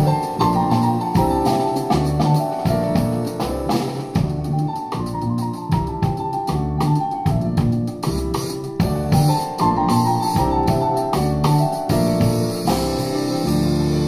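Jazz piano trio playing live: grand piano over double bass notes and a drum kit played with sticks, with frequent cymbal strokes.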